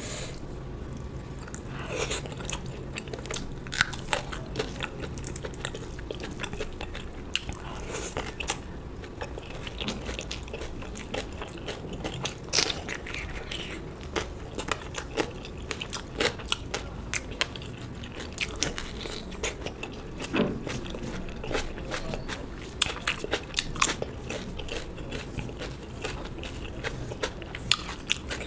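Close-miked eating sounds: a person biting and chewing food, with frequent irregular crisp crunches.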